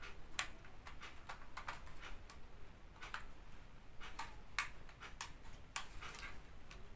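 Quiet handling sounds: small sharp clicks and taps at irregular intervals as a compact Sony Handycam camcorder is turned over and fiddled with and the pages of its instruction booklet are handled.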